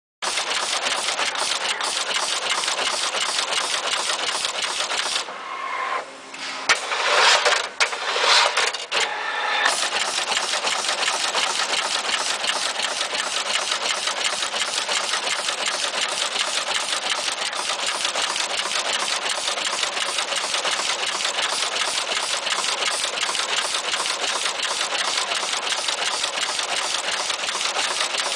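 PCB auto-insertion machine running, its insertion head clattering in a rapid, even rhythm as it puts through-hole components into the board. About five seconds in the rhythm breaks off for a few seconds of louder, irregular machine noise, then the steady clatter resumes.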